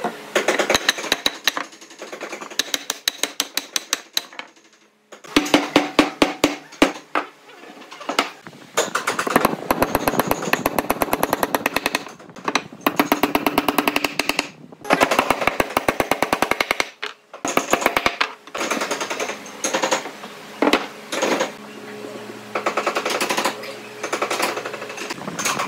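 Claw hammer driving nails into square wooden blocks: quick runs of sharp strikes, broken by a few short pauses.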